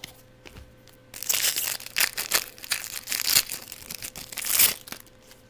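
A foil trading-card pack wrapper being crinkled and torn open by hand. It is a rough crackling that starts about a second in and stops shortly before the end, with its loudest crackle just before it stops.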